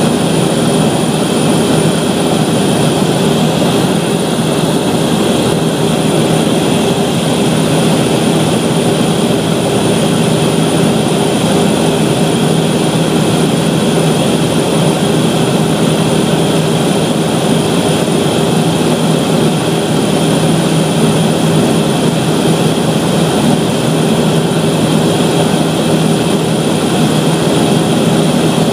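Cabin noise of a Cessna 208 Caravan in flight: its single PT6A turboprop engine and propeller running steadily, a constant loud drone with a thin high whine above it.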